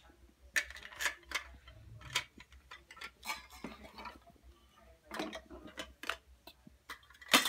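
Toy pots, bowls and plastic dishes clinking and clattering irregularly as a child handles them, with the loudest knock near the end.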